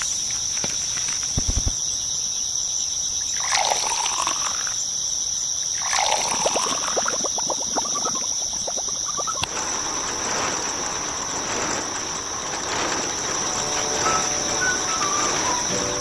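Water poured in two short goes into a miniature plastic cement-mixer drum holding cement powder, splashing and trickling. A steady high insect chirr runs underneath.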